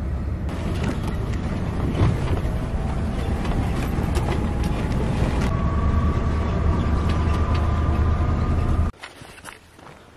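Vehicle running: a steady low rumble with a faint whine above it, which cuts off suddenly about nine seconds in. A few faint clicks and knocks follow.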